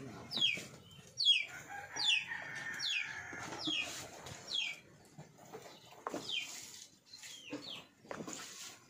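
Chickens calling: a string of short, high calls that fall in pitch, about one a second.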